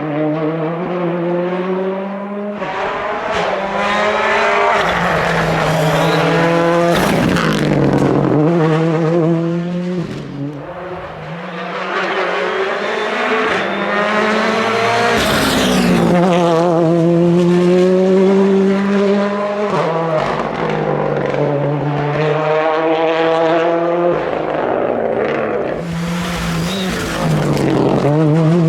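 Ford Fiesta R5 rally car's turbocharged 1.6-litre four-cylinder engine revving hard under load, its pitch climbing and dropping back again and again with each gear change.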